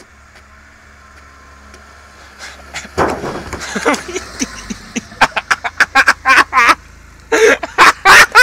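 A car drives past at close range about three seconds in, followed by a run of loud, short vocal bursts, shouts or laughter, the loudest near the end.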